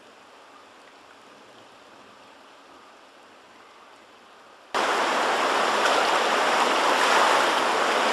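Floodwater rushing and churning in a fast torrent, cutting in suddenly and loudly about two-thirds of the way through after a faint steady hiss.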